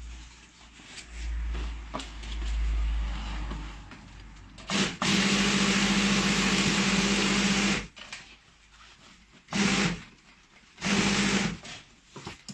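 Industrial three-needle chain stitch sewing machine with a puller, running in bursts as it stitches: a long run of about three seconds near the middle, then two short bursts.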